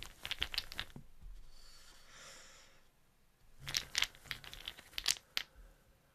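Rune stones clicking against each other in a cloth pouch as a hand rummages for one, with the fabric rustling. The clicks come in two flurries, one at the start and another from about three and a half seconds in.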